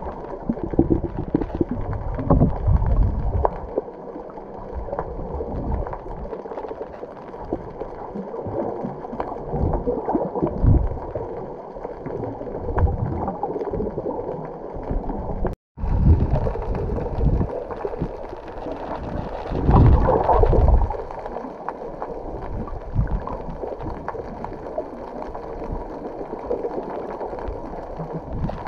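Wind buffeting the microphone in uneven gusts aboard a moving boat, over water splashing and a steady hum from the boat's engine. The sound cuts out for a moment about halfway through.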